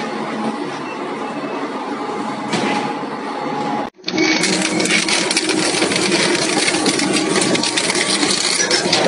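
Twin-shaft shredder running, its cutters grinding watermelon over a steady motor hum. After a brief dropout about four seconds in, a dense clatter of metal crackling and clanking comes in as the blades chew into a steel bicycle frame.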